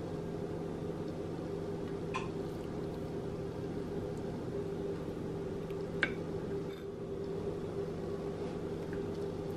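Steady low hum with a few fixed tones, and two faint clicks about two and six seconds in.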